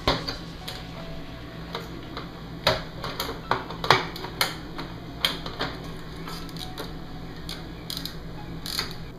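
Irregular clicks and knocks of hard plastic and metal as the LG Flatron W2252TQ monitor's plastic back cover, stand piece and LCD panel are handled and lifted apart during disassembly. The loudest knock comes about 4 s in.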